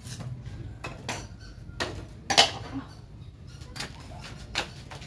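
Cleaver chopping thin kindling sticks of wood: a series of sharp wooden knocks at irregular intervals, the loudest about halfway through.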